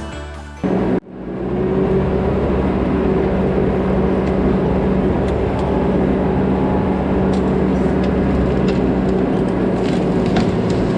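Music stops about a second in, then a diesel engine of compact land-clearing equipment runs steadily at a constant drone. Scattered cracks and snaps of brush being broken come in, more often near the end.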